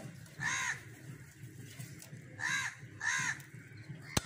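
A crow cawing three times, each caw a short call that rises and falls in pitch. A single sharp knock near the end.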